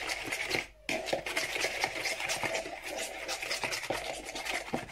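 Metal spoon stirring and scraping a thick chilli-sauce and spice marinade around a steel bowl in quick repeated strokes, with a brief pause about a second in.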